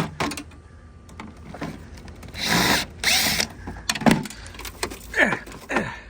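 Cordless drill driving a 1/4-inch nut-driver bit in two short bursts, a moment apart, unscrewing the screws that hold a washer's water valve. Some knocks from handling the parts follow.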